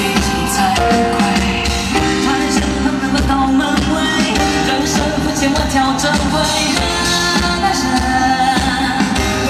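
Live concert performance: a male singer holding long notes that step from pitch to pitch over a loud amplified band with a steady drum beat, with the echo of a large arena.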